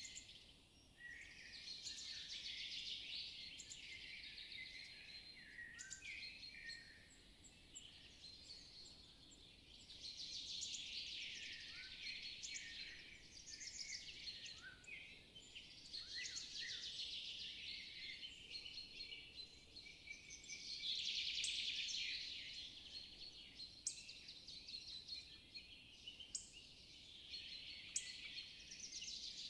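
Faint birdsong: birds chirping and trilling in phrases of a second or few, with short pauses between them.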